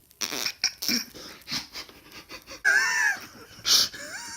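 A person's short breathy puffs and snorts, with a brief high, wavering squeal about three seconds in.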